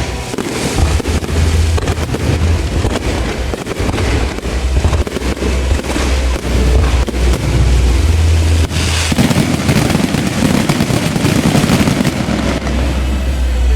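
Procession fireworks and firecrackers going off in a dense, continuous run of rapid crackling bangs.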